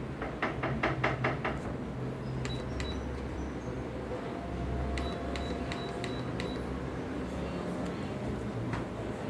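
Fitkit FT200S treadmill running with a steady low hum; in the first second and a half a quick run of about seven knocks a second, the motor knocking that a buyer blamed on a faulty unit. Several short, high electronic beeps follow from about two and a half seconds in.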